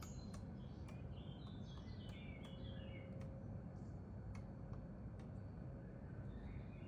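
A small songbird singing a short run of high notes that step downward, once about a second in and again near the end, over a steady low outdoor rumble, with sharp clicks every so often.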